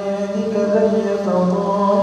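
A man reciting the Qur'an in Arabic into a microphone. It is a drawn-out melodic chant of long held notes that bend slowly in pitch, with no pause.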